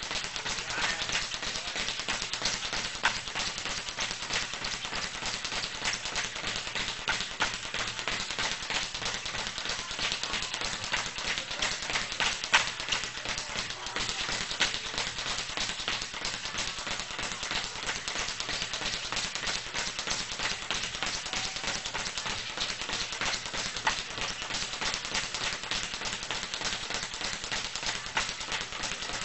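Quick taps and slaps from boxing training, a dense, uneven run of small impacts that goes on throughout, with a few louder hits standing out.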